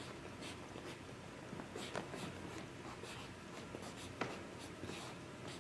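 A pencil writing on a legal pad: faint scratching across the paper in short, uneven strokes.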